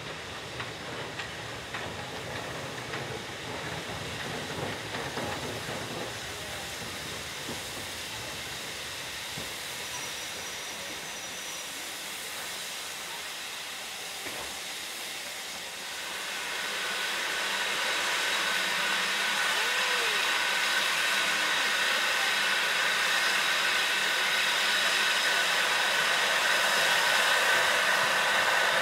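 Steam locomotive drifting into a station with a low rumble and clatter of wheels on rail. About halfway through, a loud steady steam hiss starts and continues as the engine stands blowing off steam.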